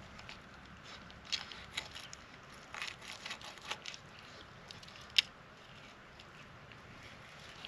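Knife cutting and scraping through a fish being filleted: scattered soft scrapes and clicks, with one sharp click about five seconds in.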